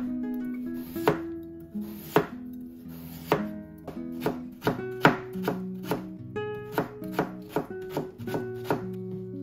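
Kitchen knife cutting a raw potato on a wooden cutting board: single slicing strokes about a second apart, then quicker chopping strokes in the second half as the slices are cut into thin matchsticks. Acoustic guitar music plays underneath.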